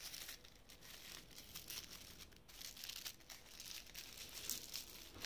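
Tissue paper crinkling and rustling in soft, uneven bursts of noise as a tissue-wrapped package is handled.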